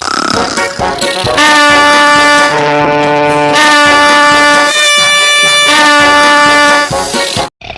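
Heavily pitch-shifted, edited audio that sounds like music: loud held brass-like chords begin about a second and a half in and step to new pitches a few times. The sound cuts off abruptly just before the end.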